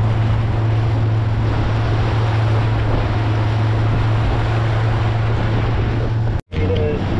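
Outboard motor of a small fishing boat running at a steady pitch, with water noise and wind on the microphone. The sound cuts out for an instant about six and a half seconds in, then carries on.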